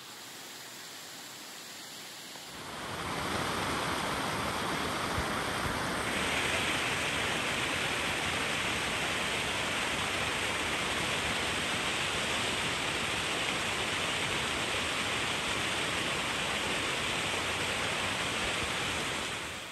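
A steady rushing of water: an even noise that swells in a few seconds in, grows hissier a little later, and drops away suddenly at the end.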